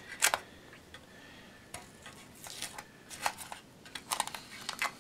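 Masking tape peeled away and a waxed backing piece worked loose from a cured epoxy putty fill: a string of short scratches and small clicks, the sharpest about a quarter second in and several more near the end.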